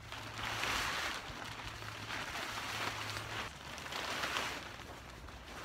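Large grey canopy tarp rustling and crinkling as it is pulled and spread over the folding metal frame, coming in several swells a second or so apart.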